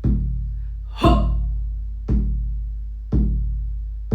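Shamanic drum beaten at a steady pulse of about one stroke a second, each a deep boom that rings and fades before the next. A woman's voice shouts "Ho!" about a second in, on a drumbeat.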